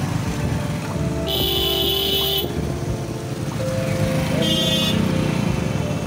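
Motorcycle riding along a road, its engine and road noise running steadily, with two vehicle horn blasts: a longer one about a second in and a shorter one a few seconds later.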